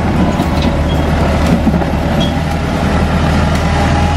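Landini DT85 tractor's diesel engine running with a steady low drone as its front blade pushes a load of mud and soil.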